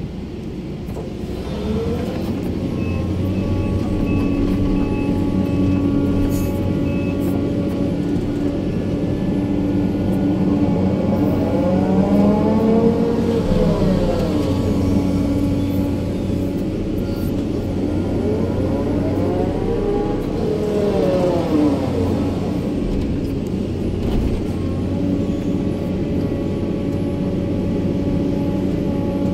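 Sumitomo 350 hydraulic excavator heard from inside its cab: the diesel engine running steadily under working load while the arm and bucket dig and move dirt. Twice a whine rises and then falls in pitch over a couple of seconds.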